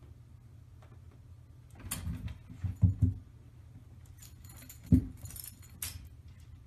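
Two cats scuffling on top of a wooden wardrobe: a quick cluster of bumps about two to three seconds in, then one sharp thump near five seconds, with a light high-pitched rattle around them.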